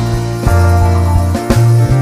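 Background music with a steady beat: bass, drums and sustained chords.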